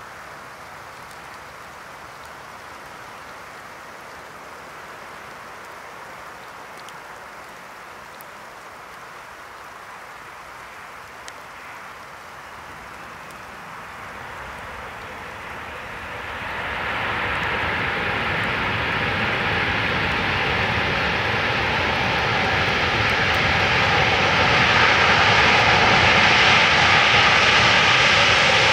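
Boeing 747-8F jet engines. A steady, fairly quiet hiss gives way about halfway through to a sharp rise into a loud jet roar with several steady whining tones, which keeps building toward the end as reverse thrust is applied on the landing roll.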